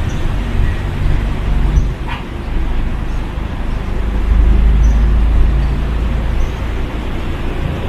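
Steady city road traffic noise with a low engine rumble that swells from about four seconds in, as a heavy vehicle passes.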